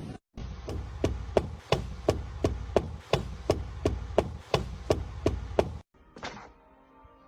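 A rapid, even series of sharp knocks, about three a second and some fifteen in all, over a low rumble. It cuts off abruptly near the end.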